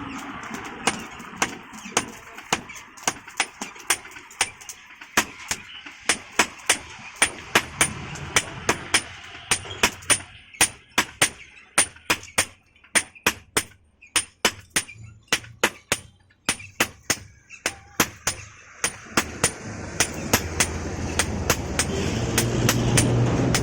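Blacksmith's hammer striking iron on an anvil in a steady run of sharp, ringing blows, about two to three a second, with a short break about two-thirds through. A low rumble swells near the end.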